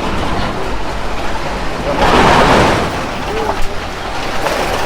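Safari truck driving along the reserve track with a steady low engine rumble. A louder rush of noise comes about two seconds in and lasts under a second.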